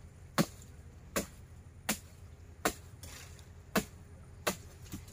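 Chopping at nipa palm fronds and stalks with a blade: six sharp chops, roughly one every three-quarters of a second.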